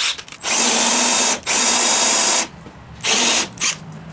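Milwaukee M18 cordless drill boring into a scrap board with a spade bit, run in bursts: two runs of about a second each, then a shorter one about three seconds in.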